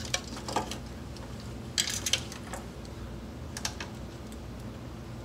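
Plastic wire connectors and leads clicking and rattling as a headlight wiring harness is handled, with a cluster of sharp clicks around two seconds in and another near the end. A low steady hum runs underneath.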